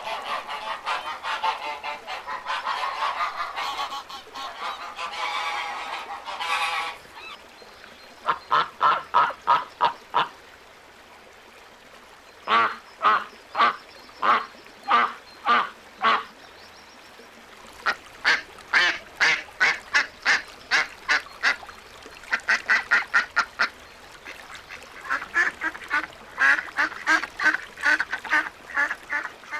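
Ducks quacking: a dense chorus of overlapping calls for about the first seven seconds, then runs of separate quacks, several a second, in bursts with short pauses between them.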